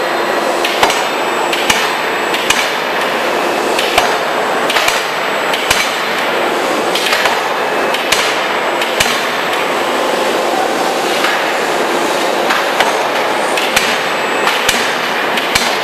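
Open-die forging hammer striking blows, unevenly spaced at roughly one a second, with sharp metallic impacts over a continuous loud machinery din.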